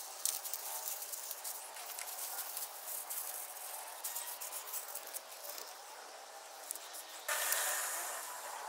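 Masking tape being pulled off the roll, torn and pressed onto a cast-iron cylinder head: a crackly hiss with many small clicks, and a louder, longer rasp of tape unrolling about seven seconds in.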